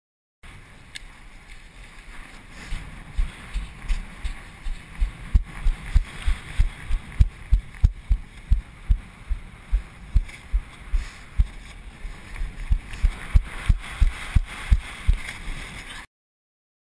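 Footsteps on wet sand heard through a worn action camera, regular low thumps about two a second, over steady wind noise on the microphone.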